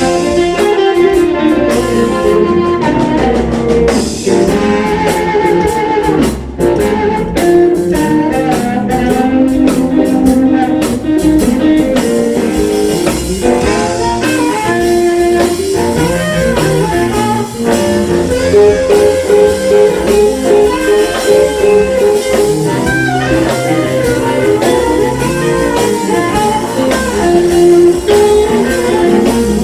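Live electric blues band playing an instrumental passage: a harmonica played into a microphone, leading over electric guitars and drums.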